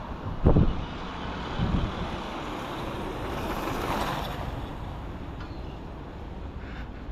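Street traffic: a vehicle passes, swelling to its loudest about four seconds in and then fading, over a steady background rush. There are two short low thumps in the first two seconds.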